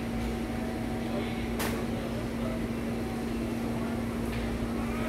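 Steady mechanical hum of supermarket background noise, one even low drone under a wash of noise, with a single sharp click about a second and a half in.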